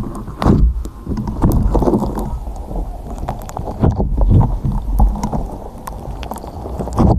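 Pink pearlescent slime squeezed and pressed by hand directly onto a microphone: wet squishing with frequent sticky pops and crackles over a heavy low rumble.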